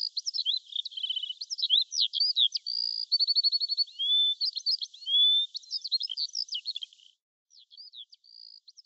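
Songbird singing a varied song of quick whistled trills, down-slurred notes and runs of rapid repeated chirps, with nothing else audible beneath it. About seven seconds in the song becomes much quieter and sparser.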